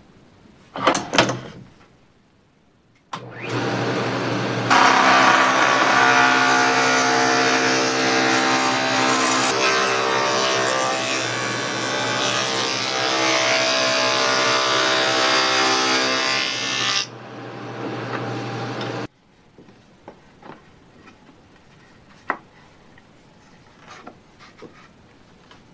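Power saw fitted with a vintage 1960s Craftsman dado stack: the motor comes up to speed, then the stack cuts a dado through plywood for about twelve seconds, and the saw runs on freely before the sound cuts off. A short loud knock comes about a second in, before the saw starts.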